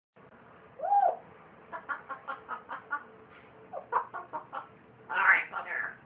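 Parrot mimicking human laughter: one rising-and-falling whistle, then quick runs of short 'ha-ha-ha' bursts, about five a second, with louder calls near the end.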